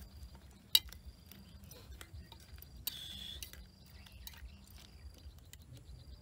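Metal spoon clinking and scraping against an enamel pot of fish soup as it is stirred, with one sharp clink about a second in and a short scrape around the middle.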